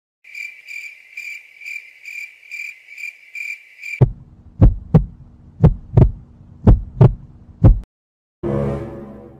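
Edited-in sound effects: a high electronic tone pulsing about twice a second, then a heartbeat effect of about four paired low thumps over a steady low hum, and a swelling whoosh near the end.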